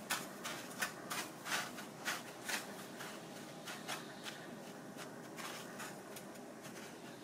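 Soft crackling and rustling of dry panko breadcrumbs as an egg-dipped oyster is pushed and pressed into them with wooden chopsticks and fingertips. A quick run of small clicks for the first few seconds, then fainter.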